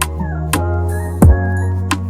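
Electronic background music with a deep bass line, a kick drum and hi-hat ticks.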